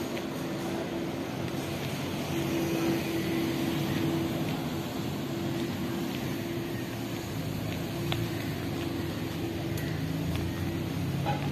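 City street ambience with a steady low mechanical hum, as from an idling vehicle or machinery, and a second, deeper hum growing louder in the last few seconds.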